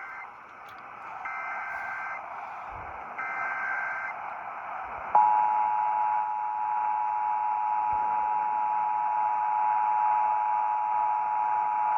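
Emergency Alert System test tones heard over a radio broadcast: the tail of one SAME digital header burst and two more, each about a second long of shrill warbling data tones, then about five seconds in the steady two-tone EAS attention signal starts and holds.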